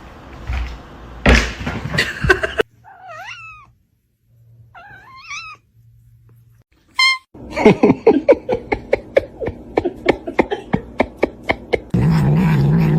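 Cats meowing: two long, wavering meows, then a short one, followed by a fast run of clicks and a low steady buzz near the end.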